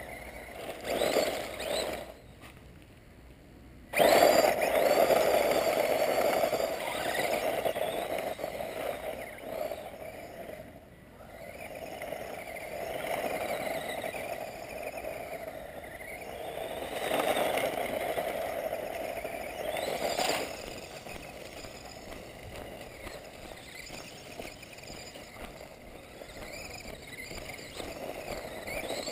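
Small electric 1/18-scale Mini Recon RC truck driving over gravel, its motor whining up and down in pitch as it speeds up and slows. It starts suddenly and loudly about four seconds in, after a short lull, and comes in repeated surges.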